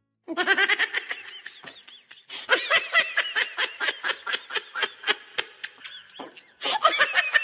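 A rapid run of short, high-pitched vocal sounds, several a second, rising and falling in pitch like laughing or yelping, with a brief pause about six seconds in.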